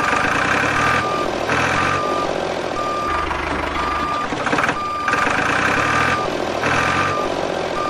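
A vehicle reversing alarm beeping about once a second, one steady tone each time, over a running engine.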